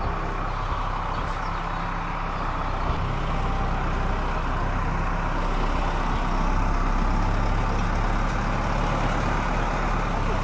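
Tractor engine running steadily, a little louder from about six seconds in.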